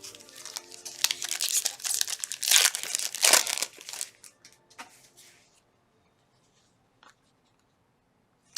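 A trading card pack's wrapper being torn open and crinkled for about four seconds, then a few light clicks as it quiets down.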